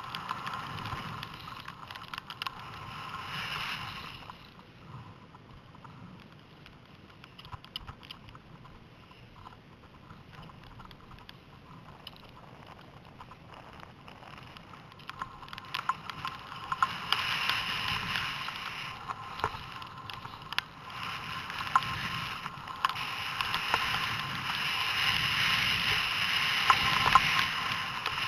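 Skis running over snow with wind on a helmet-mounted camera, mixed with small clicks and rattles. The noise drops off a few seconds in, then builds up louder and rougher from about halfway.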